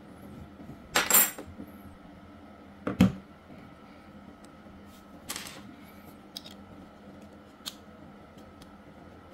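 Small metal hair-clipper blade parts clicking and clinking as they are handled and set down, a few separate knocks with the loudest about a second in and at three seconds, and lighter ticks after.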